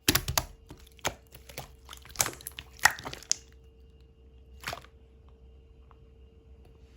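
Thick, chewy slime with gold glitter being pressed and squished by hand, giving a quick run of sharp clicks and pops for about three seconds, then one more pop a little later.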